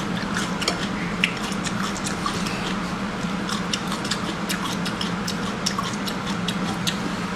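Seafood-eating sounds: irregular small clicks and crackles of shells and chewing, several a second, over a steady low hum.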